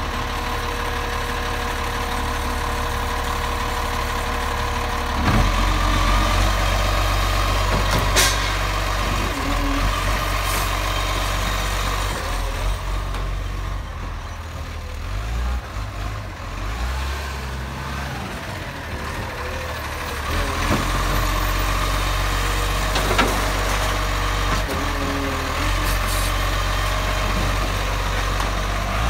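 Side-loader garbage truck's engine running steadily, its drone rising about five seconds in as the hydraulic lifting arm works a wheelie bin. There are sharp knocks from the bin and arm about eight seconds in and again near the end.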